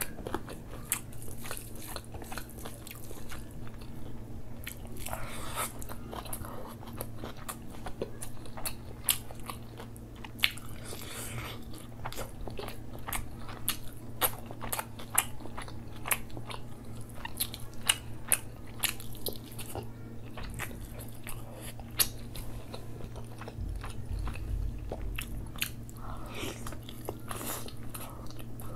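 Close-miked eating of rice and butter chicken curry by hand: steady chewing with many small wet mouth clicks, and the soft squish of fingers through saucy rice. A low steady hum runs underneath.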